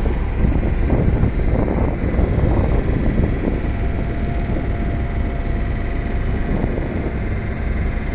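Road-marking truck's engine and machinery running steadily as the truck moves along the road, with wind rumbling on the microphone.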